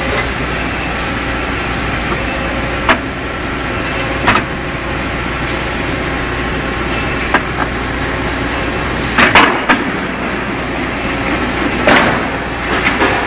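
Steady hum of factory machinery, broken by several sharp metal clanks: single ones about three and four seconds in, two close together about nine and a half seconds in, and more near the end.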